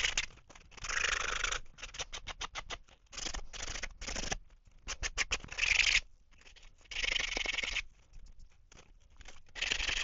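Hand sanding of a 3D-printed plastic crankbait body, smoothing the rough edges of freshly drilled hardware holes. Scratchy rubbing strokes, some about a second long and others in quick short flicks.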